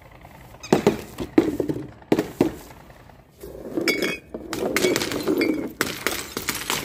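Green glass bottles clinking and breaking as balloons are dropped onto them. Several sharp impacts come in the first two and a half seconds, then a denser, busier stretch of sound runs through the second half.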